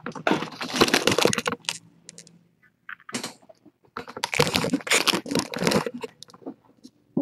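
Two bursts of rapid rustling and clicking, each about a second and a half long: one just after the start and one about four seconds in.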